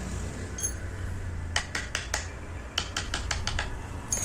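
Wood-carving chisel being struck with a mallet as it cuts a flat band into a wooden panel: about a dozen light, sharp taps in quick runs, over a steady low hum.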